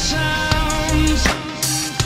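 Background music: long held pitched notes over a steady drum beat.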